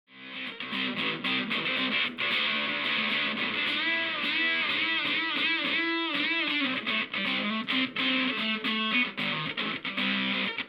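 Electric guitar played through a distortion effect pedal: picked, sustained riffs that start suddenly from silence, with the notes bent up and down around the middle.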